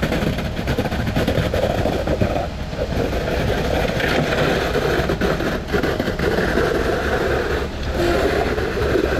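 Steady din of heavy diesel engines: a concrete pump running, with concrete trucks working alongside it.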